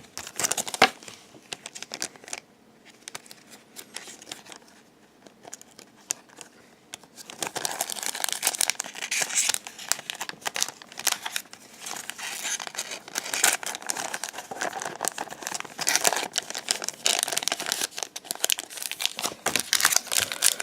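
A trading-card booster pack's wrapper being crinkled and torn open: a few sharp handling clicks at first, a quieter stretch, then dense, continuous crinkling from about seven seconds in.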